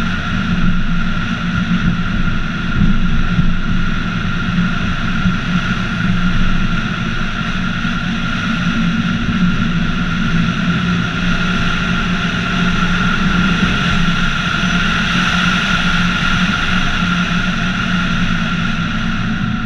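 Scion tC driving steadily along a street: a constant drone of engine and road noise, heard from a camera mounted on the hood.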